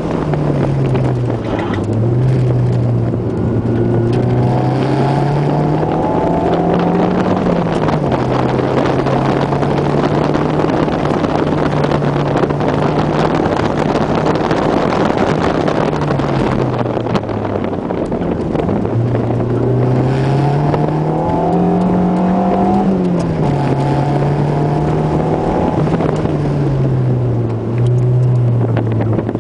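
Toyota MR2 Turbo's turbocharged four-cylinder engine heard from inside the cabin while the car is driven hard, the revs climbing and falling again and again with sharp drops after the longer pulls.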